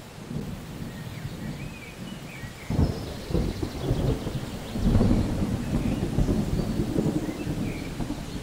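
Deep rumble of thunder, steady at first, with a sudden stronger roll about three seconds in that swells loudest around five seconds.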